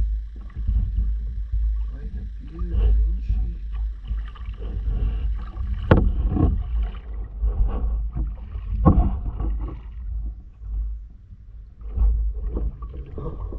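Kayak being paddled on a calm river: the paddle dipping and splashing, with water moving along the hull over a low rumble. There are two sharper splashes, about six and nine seconds in.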